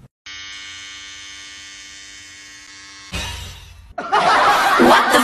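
Edited-in comedy sound effects: a steady held electronic tone for about three seconds, a short hiss, then loud laughter near the end.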